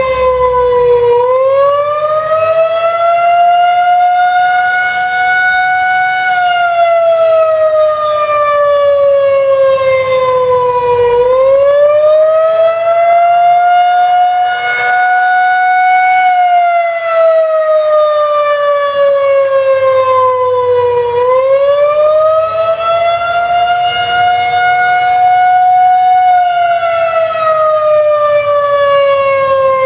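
Federal Signal 2001-130 outdoor warning siren sounding a slow wail, the attack signal. The loud tone rises over a few seconds, holds briefly, then slides back down, repeating about every ten seconds.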